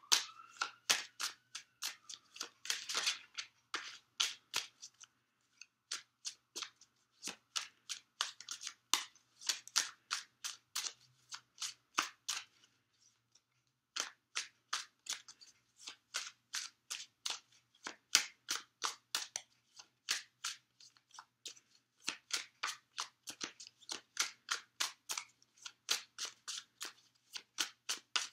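A Green Witch Tarot deck being shuffled by hand: a quick run of light card clicks and snaps, several a second, with a short pause about halfway through.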